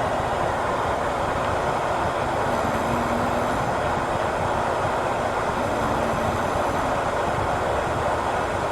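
Steady white noise played from a device speaker, with a recorded snoring sound faintly beneath it, a snore about every three seconds.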